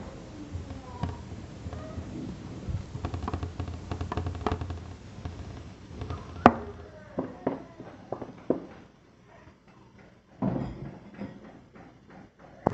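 Scattered clicks and knocks as a metal baking tray of seasoned cassava pieces is handled on a kitchen counter, with one sharp clack about six and a half seconds in and a heavier thud a little after ten seconds.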